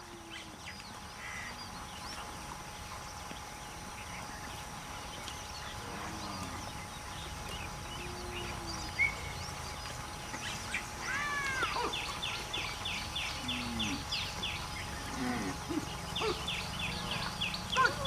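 Outdoor ambience with birds calling: scattered short calls, then in the second half two runs of fast, evenly repeated high chirps.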